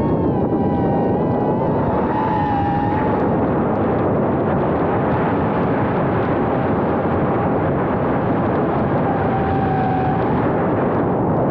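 Micro FPV quadcopter's 1303 brushless motors and propellers buzzing, picked up by the camera riding on the quad. The motor whine shifts up and down in pitch with the throttle, is most prominent in the first few seconds and again near the end, and sits over heavy wind and vibration noise.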